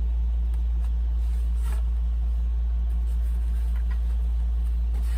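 Steady low hum, unchanged throughout, with a few faint rustles as the foam model fuselage is handled.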